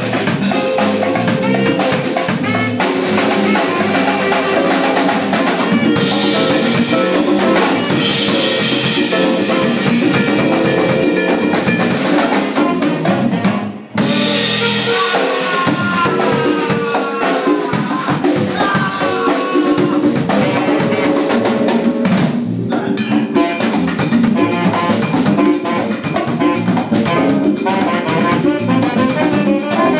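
Live Latin jazz band playing, with the drum kit and percussion to the fore over bass and piano. The band stops short for a moment about 14 seconds in, then comes straight back in.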